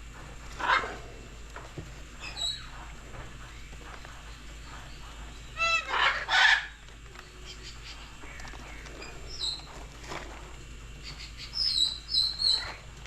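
Bird calls: a few separate short squawks and chirps, the loudest a pitched call about six seconds in, and a quick run of high chirps near the end.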